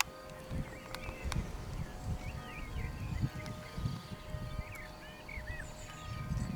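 Outdoor ambience: wind gusting on the microphone as an uneven low rumble, with small birds chirping in short twittering calls and a few sharp clicks.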